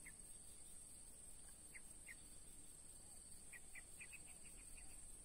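Quiet swamp ambience: a steady high-pitched insect drone, with a few short high chirps and a quick run of about eight chirps a little past the middle.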